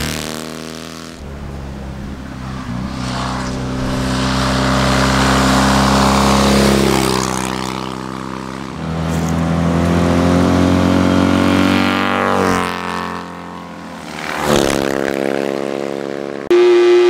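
Hill-climb race car engines revving hard, pitch rising through the gears and falling away as the cars pass, in several abruptly cut segments. A brief steady horn-like tone comes in near the end.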